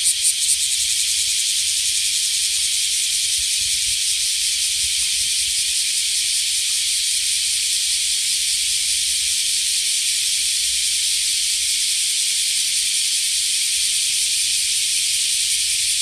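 Large brown cicada (aburazemi) singing: a few pulsed buzzes at the start run together about half a second in into a continuous, steady high sizzling buzz.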